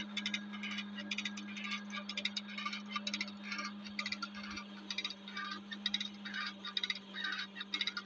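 Pitchfork tearing and tossing dry hay from a snow-covered round bale: a dense, rapid crackling rustle over a steady low hum.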